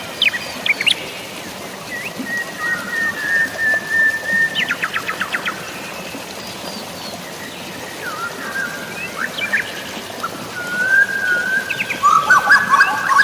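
Several birds singing and calling over a steady wash of drizzling rain and falling water. There is a long level whistle about two seconds in, a quick run of falling notes around the middle, and a busier overlapping mix of calls near the end.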